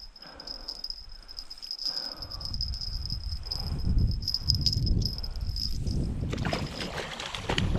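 A steady high-pitched insect drone, with a low rumble of wind on the microphone growing from about two seconds in. In the last couple of seconds a louder rustling noise takes over and the insect tone fades.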